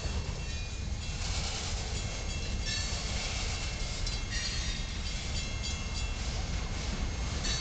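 Freight train tank cars rolling over the rails with a steady rumble, and thin high-pitched wheel squeals coming and going.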